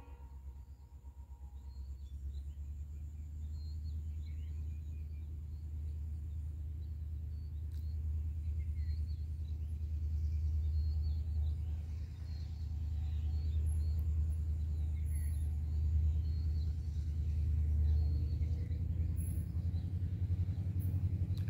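Diesel locomotive's low engine rumble, heard from a distance as the train approaches, slowly growing louder. Faint birds chirp over it.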